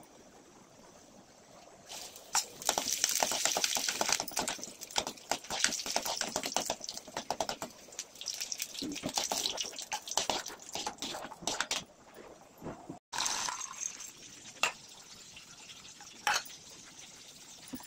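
Hot oil sizzling and crackling in a steel pan as dried red chillies fry, starting about two seconds in and dying away about twelve seconds in. Near the end come a few light knocks of the steel pan as its contents are tipped into a pot.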